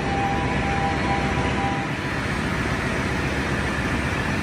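Loud, steady din of ship's engine-room machinery running. An engine room alarm's steady tone sounds over it for about the first two seconds, then stops.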